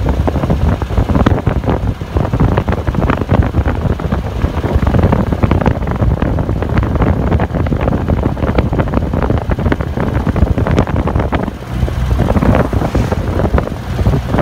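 Wind buffeting the microphone on a moving motor trike, with the trike's engine and road noise underneath; the wind briefly eases about twelve seconds in.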